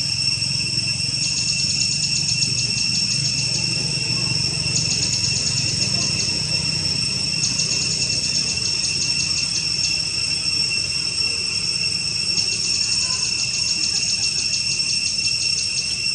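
Insects chirring: a steady high drone, with bouts of rapid pulsed chirping two to three seconds long that come back every few seconds, over a faint low rumble.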